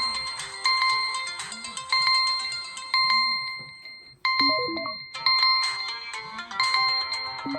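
Several phone ringtones and alarm-clock sounds going off at once: a bright ringing beep repeating about every two-thirds of a second over a melodic tone. About four seconds in, the sound dips briefly and a short run of quick notes plays before the repeating ring starts again.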